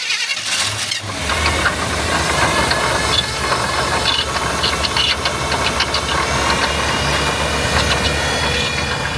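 Engine running with a knocking and rattling over a steady low drone, the unexplained noise the truck is making.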